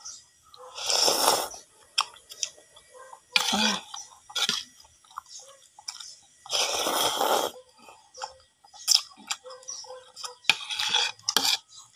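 A person blowing on and slurping noodles off a fork: four long, airy blows and slurps a few seconds apart, with chewing and light clicks of the fork between.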